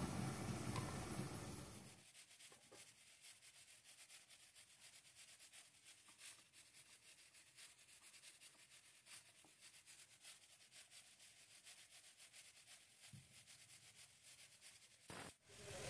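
Fish curry sizzling steadily in a covered frying pan on a gas stove for about two seconds, then the sound drops away to near silence with only faint scattered ticks.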